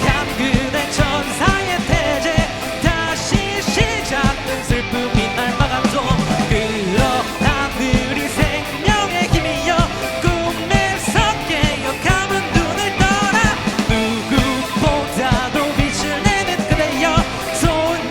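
Live rock band playing a fast, loud song: a steady pounding drumbeat under wavering lead lines.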